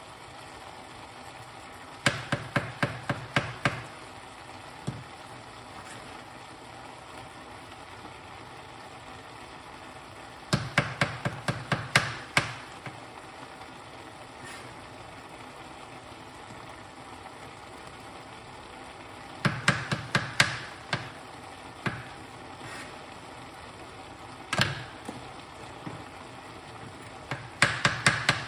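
Knife chopping on a cutting board in short runs of quick strokes, four runs about eight seconds apart, with a few single knocks between them.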